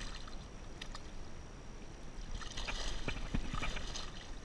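Large tarpon splashing and thrashing in the water against the side of a kayak as it is held by the jaw: a few small splashes, then a burst of heavier splashing about halfway through.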